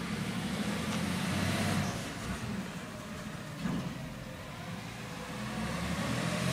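Garbage truck engine running as the truck drives along the street, a low rumble that swells about a second in and again near the end.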